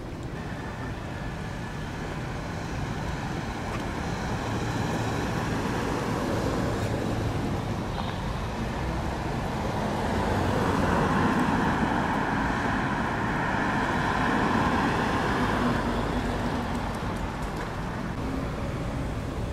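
Street traffic: cars driving along a town street, with one vehicle passing close and loudest around the middle before fading.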